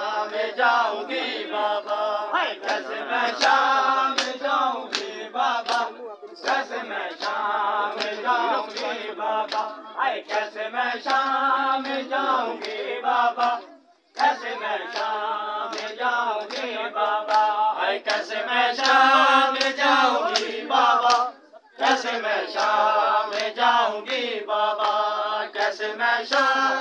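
A group of men chanting a noha together while beating their chests in time: Shia matam for Muharram. The sharp slaps keep a steady beat under the voices, and the chant breaks off briefly between lines.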